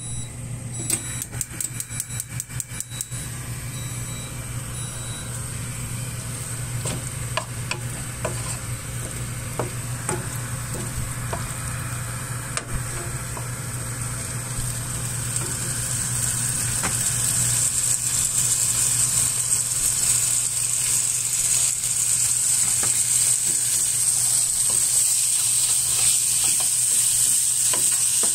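Pieces of meat frying in a nonstick pan, sizzling and crackling while a wooden spatula stirs them. The sizzle grows louder and steadier from about halfway through, over a low steady hum.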